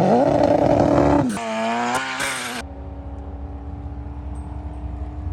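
Turbocharged Mitsubishi engine run hard at full boost: it revs up sharply, its pitch swings up and down, and then it holds a steady pitch at high revs.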